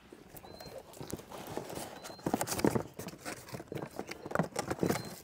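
Irregular knocks, clicks and rustling as the plastic parts and packaging of a cordless pressure washer are handled and unpacked, a few knocks a second, getting busier from about two seconds in.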